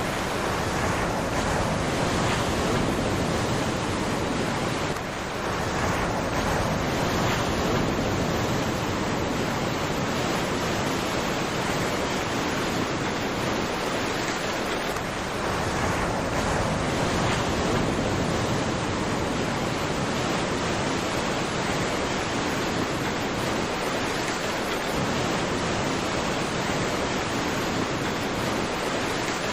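Ocean waves washing onto the shore: a steady, continuous surf noise with no distinct breaks.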